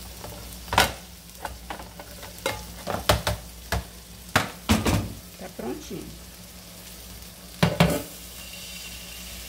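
Metal frying pans knocking and clattering in a series of sharp knocks as an omelette is turned over between two pans and set back on the burner. Loudest about a second in and near the end, over a steady frying sizzle.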